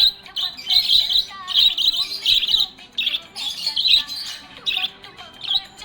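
Budgerigar chirping and chattering: quick bursts of high chirps and warbles, several a second, softer in the last couple of seconds.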